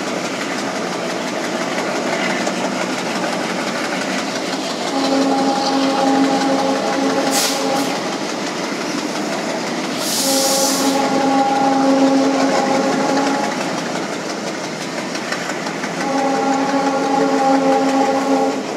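WDG3A diesel locomotive's air horn sounding three long blasts of about three seconds each, over the steady rumble of the coaches running on the track. A brief hiss cuts in about ten seconds in.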